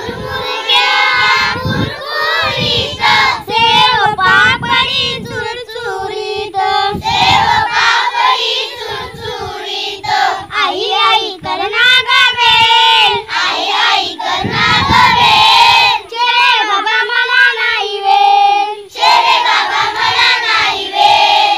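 A group of young children singing a Marathi school poem together in unison, with the tune rising and falling continuously.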